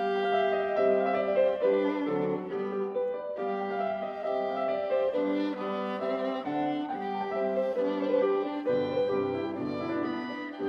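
Violin playing a melody, some held notes with vibrato, over a lower sustained accompaniment.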